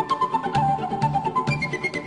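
Background music: a melody line that wanders downward over a steady beat of about two bass pulses a second.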